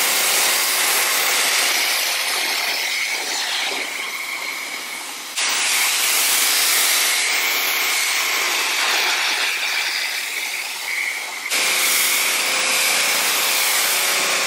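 Pressure-washer spray rinsing soap off a truck's bumper, headlight and hood: a steady rushing hiss over the machine's hum. It cuts off abruptly and starts again twice.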